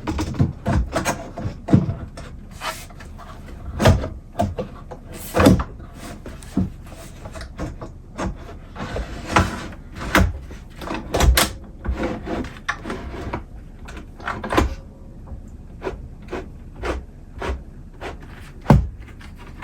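Wooden cabinet drawer being fitted back into the cabinet: a run of irregular knocks, clunks and scrapes as it is handled, pushed in and pulled out on its newly readjusted brackets.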